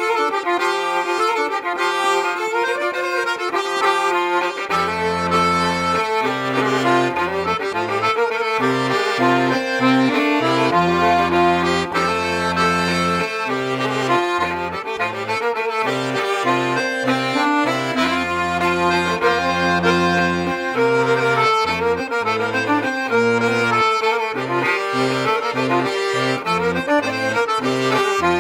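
Folk tune played on accordion: a melody alone at first, with bass notes joining about five seconds in.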